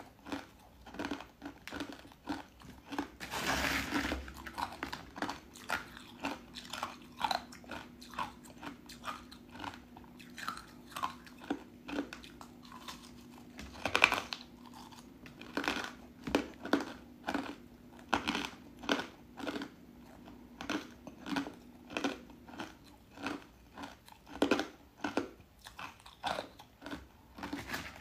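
Close-up crunching and chewing of thin, crisp pieces of white ice dusted with matcha powder: a rapid run of brittle crunches, with one sharp, loud bite about halfway through.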